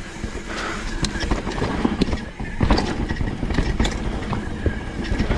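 Mountain bike descending a rough dirt trail: tyre noise and a continuous rattle of the bike, with frequent sharp knocks and clicks as it hits bumps.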